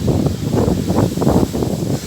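Storm wind gusting hard against the microphone, a loud rumbling buffet that swells and drops several times a second.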